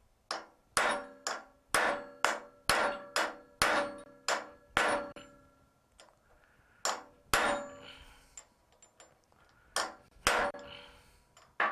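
A hammer strikes a steel rivet set on a bench anvil to cold-head a brad rivet: a quick, even run of about ten ringing metal blows, a pause, then a few more spaced blows. The anvil's mounting bolt is loose, and the work seems to bounce a little under the blows.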